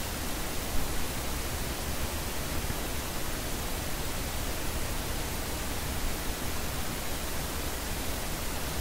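Steady background hiss of the voice recording's noise floor, even across the whole range, with one brief faint noise about a second in.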